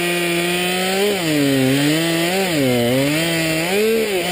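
Stihl 200T top-handle two-stroke chainsaw running at high revs while making the back cut through a spruce trunk. Its engine pitch sags and recovers several times as the chain loads up in the wood.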